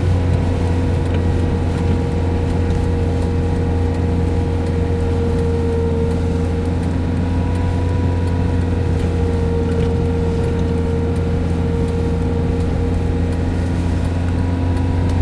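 Steady drone of a car driving, heard from inside the cabin: a strong low engine hum with a few steady higher tones over it, unchanging throughout.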